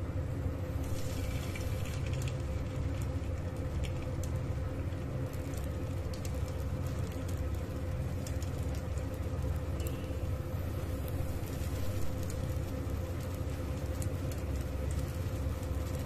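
Cauliflower pakoras frying in hot oil: scattered light crackles and pops over a steady low hum.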